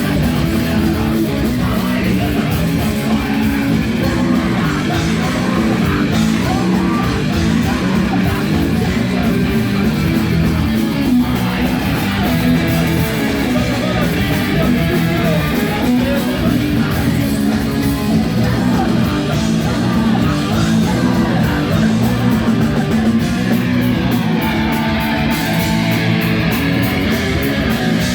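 A rock band playing live at full volume, with electric guitars, bass and drums.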